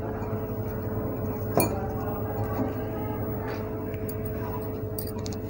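Hand squeezing and mixing damp poha, besan and chopped onion in a glass bowl, a soft steady squelch with a sharp clink against the glass about a second and a half in and a few light clicks near the end.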